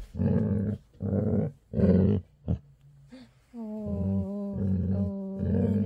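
Yellow Labrador retriever's happy growl while being petted: three short rumbling growls in the first two seconds, then, after a brief lull, a long drawn-out growling moan with a wavering pitch from about three and a half seconds in. A contented, affectionate growl, not an aggressive one.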